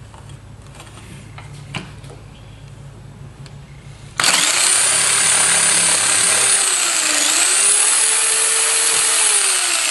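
Power tool cutting wood, most likely the notch in a 2x4. It starts loud and sudden about four seconds in, after a faint low hum and a few light clicks. Its whine dips in pitch under load partway through, recovers, and begins to fall near the end.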